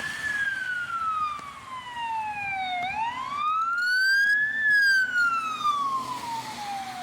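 Emergency vehicle siren wailing, its pitch sliding slowly down, up and down again in sweeps of about three seconds, over a steady hiss of rain.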